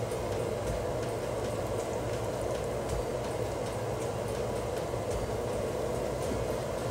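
Small gram-flour batter pakoras deep-frying in hot oil in a kadhai, a steady sizzle with faint crackles.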